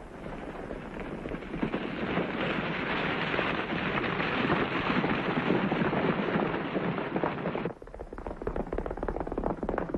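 Hoofbeats of a band of galloping horses, a dense rumble that grows louder over the first couple of seconds. Near the end it changes abruptly to a choppier clatter of separate hoof strikes.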